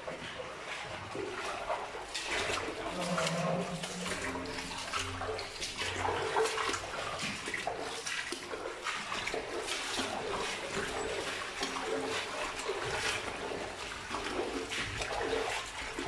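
Footsteps splashing irregularly through shallow water on a tunnel floor.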